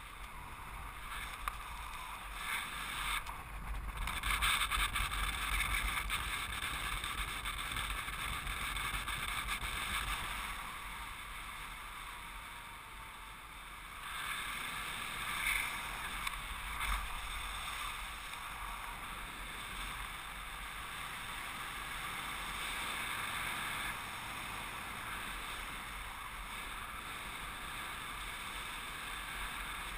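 Wind rushing over the microphone of a camera worn in paragliding flight: a steady, noisy rush that swells a few seconds in, eases off in the middle and picks up again.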